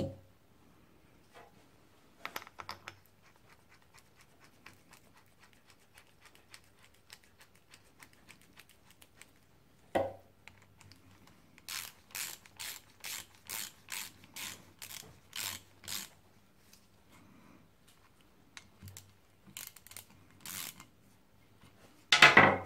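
Hand ratchet with a socket running in the bolts that join the two halves of a motorcycle brake caliper: fast faint clicking, a knock about ten seconds in, then a run of louder ratchet strokes about two a second. A loud knock near the end.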